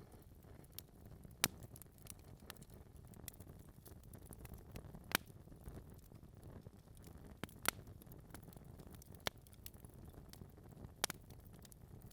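Wood fire in a fireplace crackling: burning logs give off scattered sharp pops and snaps over a low steady rumble of flames, with four louder pops spread through.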